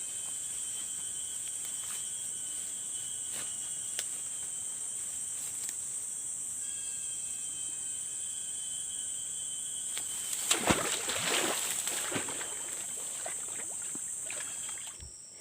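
Steady high-pitched drone of an insect chorus over swamp ground. A louder burst of noise about ten seconds in lasts a couple of seconds.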